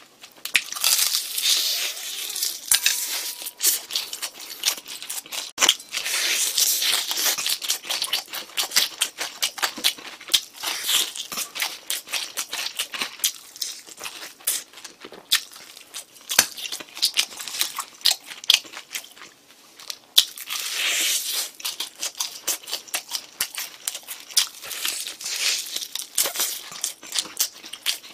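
Crispy cheese-powdered fried chicken being torn apart by hand and chewed close to the microphone: dense, irregular crunching and crackling that comes in clusters with brief lulls.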